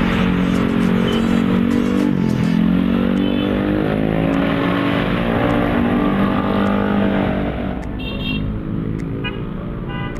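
Dense road traffic of motorcycles and cars passing close by. One engine's pitch dips about two seconds in, then climbs steadily as it accelerates; the traffic gets quieter near the end.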